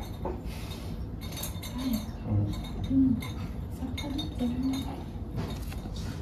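Scattered light clinks, like glass or tableware being handled, with faint low voices in the background.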